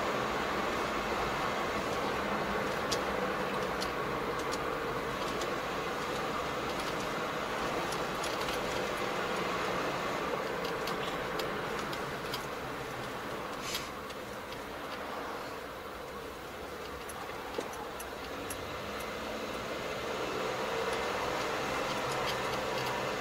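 Car driving along a street, heard from inside the cabin: steady road and engine noise with scattered light ticks, easing off a little in the middle and building again near the end.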